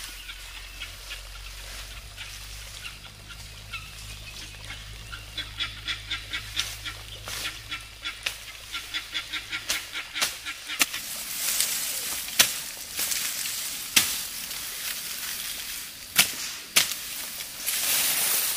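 Farm poultry calling in a quick run of repeated calls, followed by several sharp knocks.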